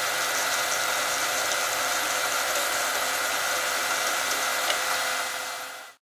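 Graphtec CE5000-60 vinyl cutter contour-cutting a transfer sheet: a steady mechanical whir from its carriage and sheet-feed motors, with a faint click, fading out near the end.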